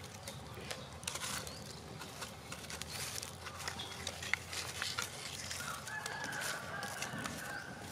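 A rooster crowing, one long drawn-out call near the end, over the crackle and sharp pops of a wood fire with cashew nuts roasting in its embers.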